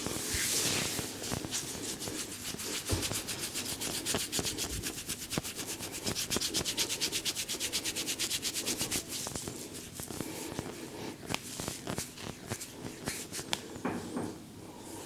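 Brisk massage strokes rubbing over hair and skin, a fast even run of short strokes through the middle, breaking up into scattered taps and light clicks near the end.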